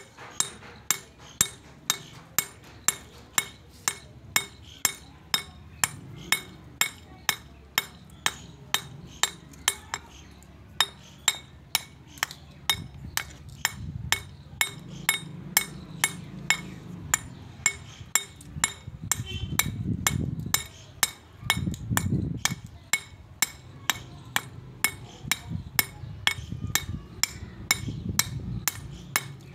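Steel pick-hammer pecking the stone faces of a sil batta (grinding slab and roller): an even run of sharp metal-on-stone strikes, about two a second. The pecking re-roughens the stone's grinding surface.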